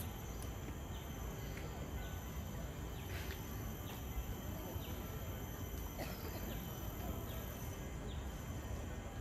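Park ambience: birds giving short falling chirps about once a second over a steady low rumble of background noise, with a thin steady high drone like insects.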